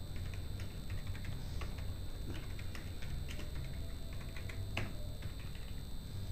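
Computer keyboard being typed on: quick, irregular runs of key clicks, over a faint steady hum.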